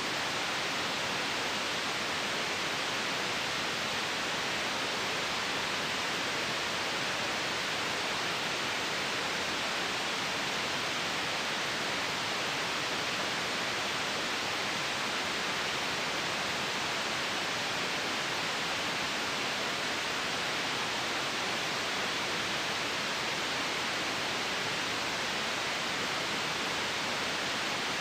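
Steady white noise: an even, unbroken hiss that neither rises nor falls, strongest in the upper range.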